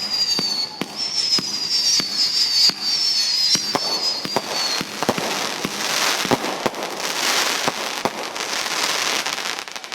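Fireworks going off: high whistles slide slowly down in pitch over the first five seconds, mixed with sharp pops, then a dense crackling with many sharp bangs.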